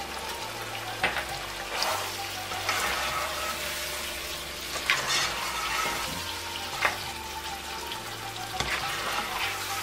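Goat meat frying with a steady sizzle in a nonstick pan, stirred with a plastic spoon. The spoon scrapes and knocks against the pan a few times.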